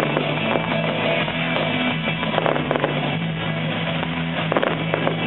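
Music with steady held notes, loud and continuous, over the faint crackling pops of a fireworks display.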